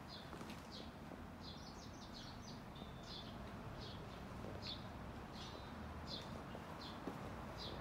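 A bird chirping repeatedly, one short high note about every two-thirds of a second, with a quick run of notes about two seconds in.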